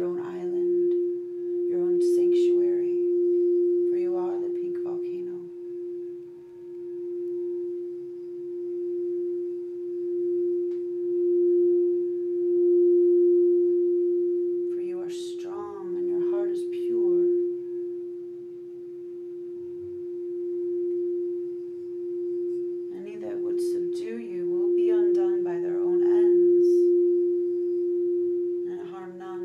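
Quartz crystal singing bowl ringing with one steady tone that swells and fades in slow waves.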